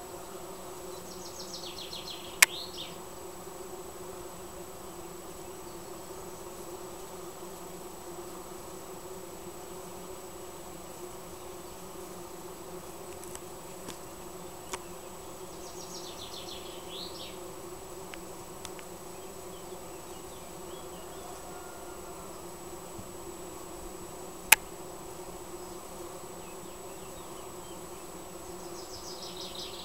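Bees foraging in a flowering linden tree, their many wingbeats making a steady, even hum. A short high trill comes three times, and two sharp clicks stand out as the loudest sounds.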